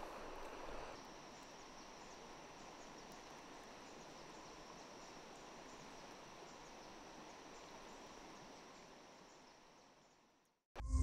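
Faint riverside ambience: a soft steady hiss of flowing water with a thin, steady high insect trill over it. The hiss drops a little after about a second, and everything fades out near the end.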